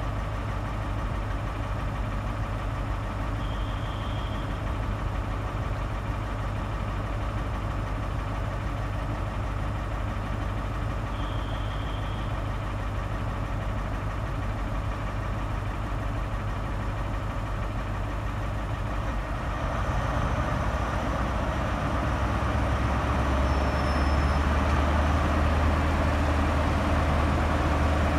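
Diesel engine of a Class 43 High Speed Train power car idling steadily, then powering up about two-thirds of the way through. Its deep running note grows louder as the train starts to pull away.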